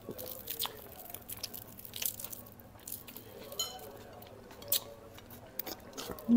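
Cutlery clicking and scraping on ceramic plates during a meal: a scatter of light, irregular clicks, with one brighter ringing clink a little past halfway.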